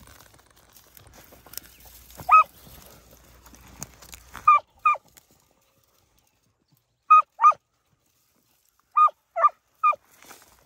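Beagle hounds giving short, sharp barks on a rabbit trail: about eight yelps, a single one and then pairs and a triplet, over faint footsteps in dry brush during the first half.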